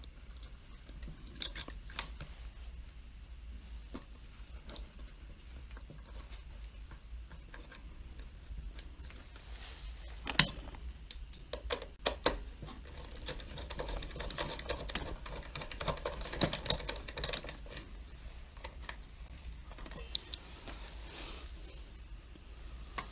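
Scattered light clicks and taps of hands fitting wiring and parts inside a plastic blender base, with a sharper knock about ten seconds in and a busy run of small clicks a few seconds after it.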